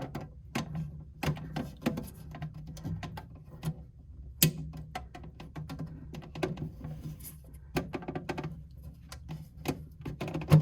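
Irregular clicks, taps and light knocks of hands working a mini fridge's thermostat sensing wire back into place against the freezer compartment, over a low steady hum.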